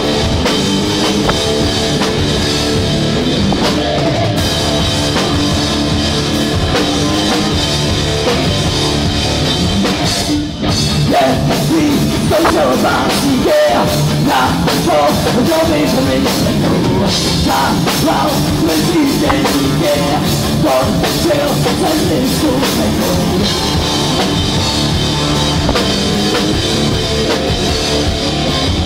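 A rock band playing live: electric guitars and a drum kit, loud and continuous, with a brief dip about ten seconds in.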